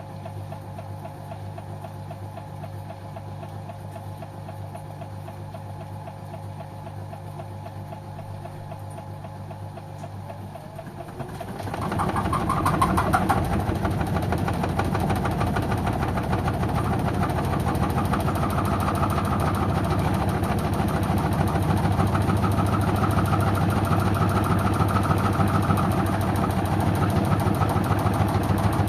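LG washing machine partway through a synthetics 30 °C cycle: a low steady hum, then about eleven seconds in the machine becomes much louder as the drum motor starts up, and it runs steadily at that level.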